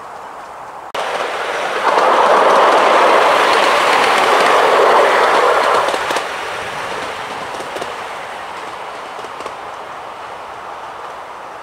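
A 7¼-inch gauge miniature train running past on the track, its wheels rumbling on the rails with a few clacks. The sound comes in suddenly about a second in, is loudest for the next few seconds as the train passes, then fades steadily as it moves away.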